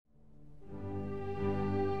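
Slow instrumental music fading in from silence, with long held notes.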